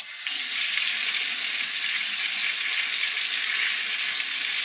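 Water from a kitchen tap fitted with a Zanjia motion-sensor attachment, switching on abruptly as a hand passes the sensor and then running in a steady stream into the sink.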